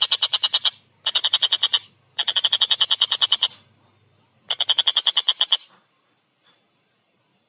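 Tengkek buto kingfisher giving its rapid chattering 'ngekek' call: four bouts of fast, evenly repeated harsh notes, the third the longest. The calling stops about two seconds before the end.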